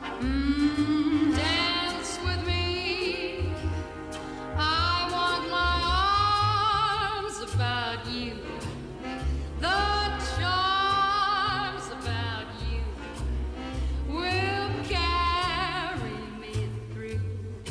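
Vintage-style swing song with a singer holding long, wavering vibrato notes in phrases, over a walking bass beat.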